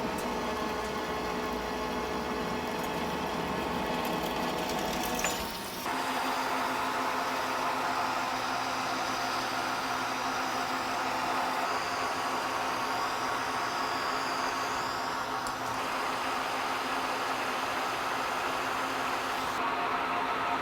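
Metal lathe running steadily, a machine hum with a whine of gearing. About five and a half seconds in the sound briefly dips, then settles on a different tone.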